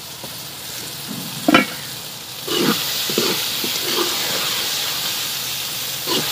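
Curry of mustard-green stalks and potatoes sizzling in an aluminium karahi, frying down in its own juices near the end of cooking. A metal ladle stirs and scrapes against the pan several times, and the sizzle gets louder about two and a half seconds in.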